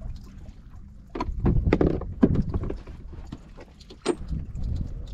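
Sea water slapping against the hull of a small wooden boat, with a few sharp knocks and splashes about a second in, near two seconds and around four seconds.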